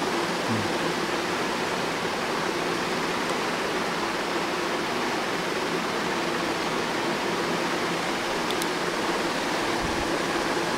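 Steady hiss of room noise with a faint low hum, unchanging, with a couple of faint clicks near the end.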